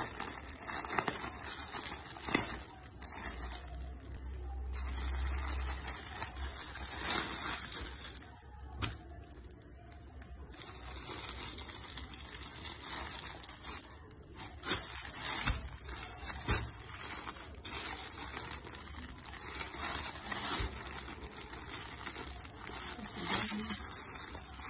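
Clear plastic saree packaging crinkling and rustling as hands handle and open it, with irregular crackles and a short lull about eight seconds in.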